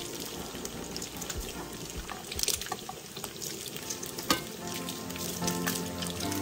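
Bacon strips sizzling and crackling in hot rendered fat in a frying pan, with a few sharp clicks of metal tongs against the pan as the strips are turned.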